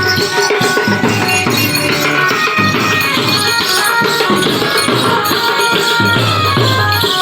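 Folk music with a fast, even drum beat and jingling percussion under a melody of held notes.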